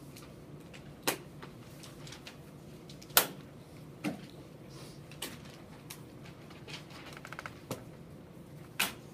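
Scattered sharp knocks and clicks of students at their desks, turning papers over and writing, about six over nine seconds, with a short run of quick ticks shortly before the end.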